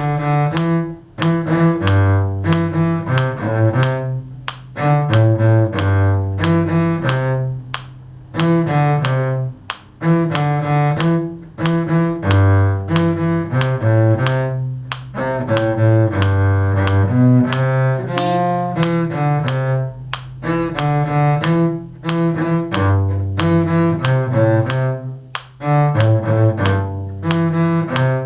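A cello playing a simple melody with the bow, note after note in short phrases with brief breaks between them.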